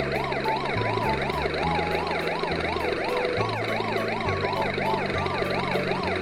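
A fast up-and-down wailing siren, swinging about three to four times a second, over background music with a moving bass line.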